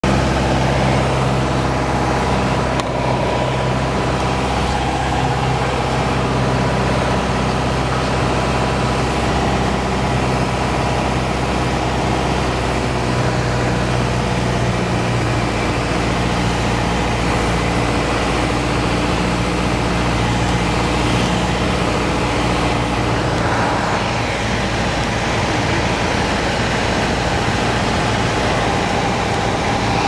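Light single-engine airplane's piston engine and propeller droning steadily, heard from inside the cockpit on a landing approach.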